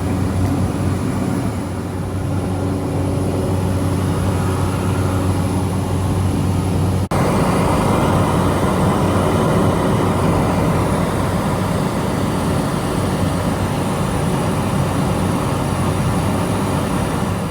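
Propeller aircraft engines running steadily, heard from inside a small plane's cabin, with a strong low hum and a steady whine. The sound breaks off for an instant about seven seconds in.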